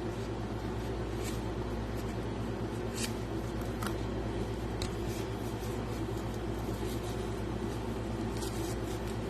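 A steady low hum runs throughout, with a few scattered crinkles and light clicks from packaging and stones being handled during unwrapping.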